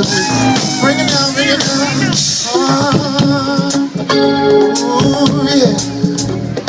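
Live R&B band music with a lead vocal singing over a steady beat.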